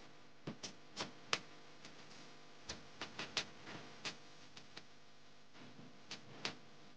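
Faint, irregular sharp clicks and taps, about a dozen in small clusters, over a steady low hiss.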